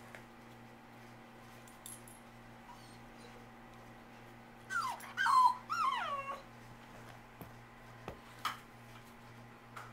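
Wolf-husky puppy whining and yipping in a short run of high calls that slide down in pitch, about five seconds in, while play-fighting with another pup. A few short, light taps follow.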